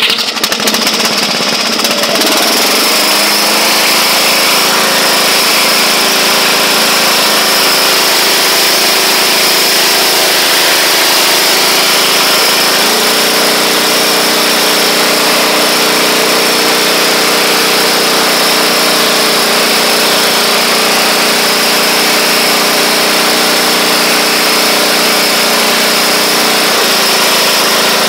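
1979 Roper lawn tractor's 8 hp engine running steadily while the tractor drives along in first and then second gear. The engine note steps up slightly about halfway through and drops back near the end.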